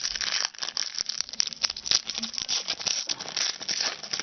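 Basketball trading cards and their pack wrapper being handled at close range: a dense, fast run of crinkles and clicks, as when the next pack is torn open and the cards are pulled out and flicked through.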